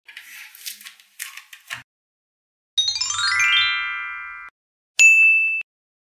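Small magnetic balls clicking and rattling for under two seconds. Then comes a rising chime run that rings and fades, and about five seconds in a single short, high ding that cuts off abruptly.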